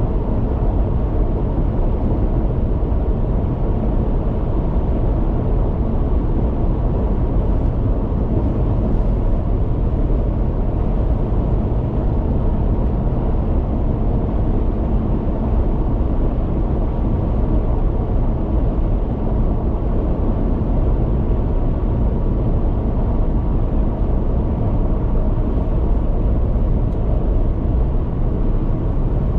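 Steady rumble of a car driving at highway speed, a low, even road noise from tyres on pavement that holds level throughout.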